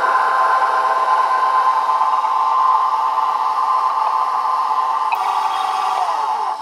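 KitchenAid Professional 600 stand mixer running steadily, its wire whisk beating a runny egg, butter and sugar batter in the steel bowl. Near the end the motor whine falls in pitch and dies away as the mixer is switched off.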